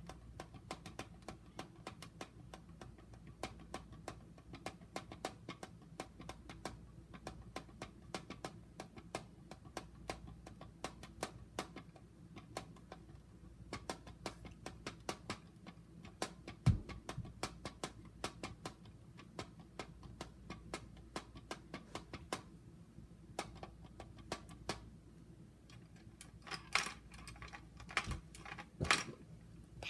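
ASMR tapping: a long run of light, quick finger taps and clicks, several a second, like typing, with one louder knock about 17 seconds in and a few heavier taps near the end.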